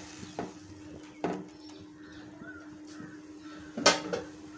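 A metal ladle stirring and scraping in a non-stick pan of simmering vermicelli and sago, with a couple of light strokes and then one louder knock of metal on the pan about four seconds in. A faint steady hum underneath.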